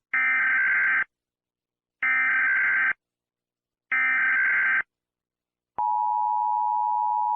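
Emergency Alert System SAME header: three bursts of digital data tones, each about a second long and about a second apart. About six seconds in, the steady two-tone EAS attention signal begins.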